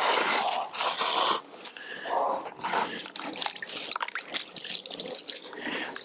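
A sponge dipped into a bucket of water and squeezed out, water splashing and dripping back into the bucket in many small irregular splashes, loudest in the first second and a half.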